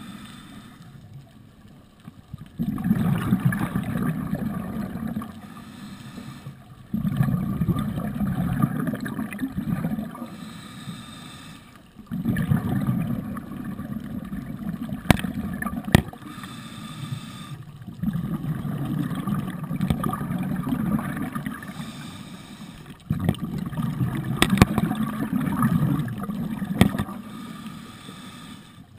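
Scuba diver breathing through a regulator underwater: about five bubbling exhalations of roughly three seconds each, separated by quieter inhalations. A few sharp clicks.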